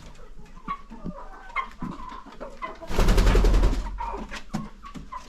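Chickens in a laying house clucking, with many short calls, and a loud rustling burst about three seconds in.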